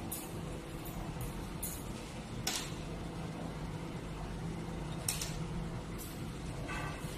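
6030B desktop heat-shrink tube machine running, its conveyor belt and tunnel giving a steady low hum. A few light clicks break through, the sharpest about two and a half and five seconds in.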